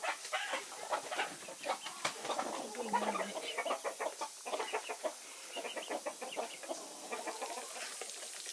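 Chickens clucking, a string of short, irregular calls.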